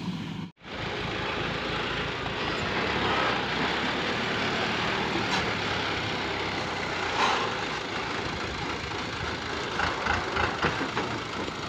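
Ashok Leyland tipper truck's diesel engine running close by, with a few short knocks or rattles in the second half. The sound drops out for a moment about half a second in.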